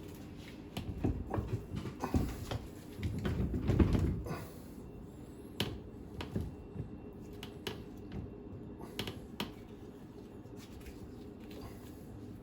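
Hand tools clicking and knocking against metal as the stern drive's mounting nuts are run down: irregular sharp clicks, with a louder run of rapid clatter about three to four seconds in, then sparser clicks.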